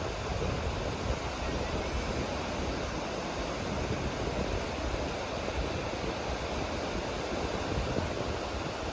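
Sea surf washing steadily onto a beach, with wind rumbling on the microphone.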